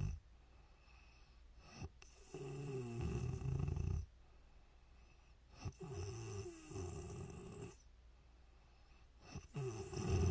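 A sleeping woman snoring: three loud snores, each about two seconds long and each starting with a short sharp onset, with quiet stretches of a few seconds between them.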